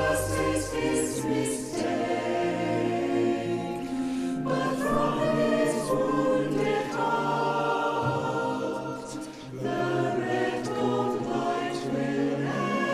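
Mixed choir of men's and women's voices singing a slow choral passage in English, its sustained chords changing every few seconds.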